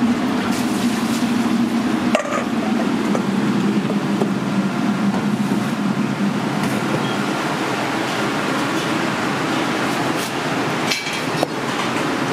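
Steady rushing kitchen background noise, with a sharp knock about two seconds in and two more near the end.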